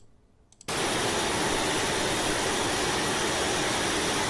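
Loud, steady hiss of noise that cuts in suddenly under a second in: a video clip's soundtrack swamped by noise from a faulty right audio channel.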